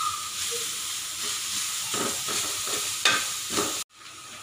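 Shredded cabbage, carrot and beans sizzling in a hot oiled metal kadai while a metal spatula stirs and scrapes the pan, with a few sharper scraping strokes in the second half. The sizzle cuts off abruptly near the end.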